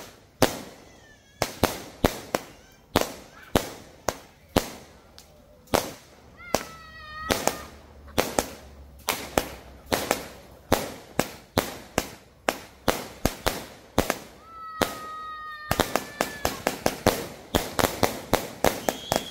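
Multi-shot fireworks cake firing aerial shells in a steady string of sharp bangs, about two a second, quickening into a rapid volley over the last few seconds.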